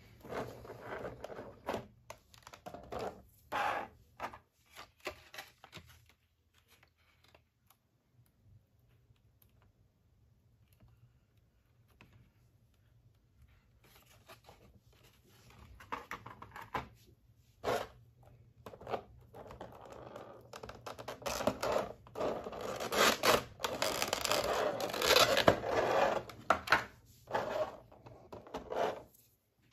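Clear plastic blister trays being handled and pulled apart: irregular crinkling, scraping and clicks of stiff plastic. It goes quiet for several seconds midway, then comes back busier and louder.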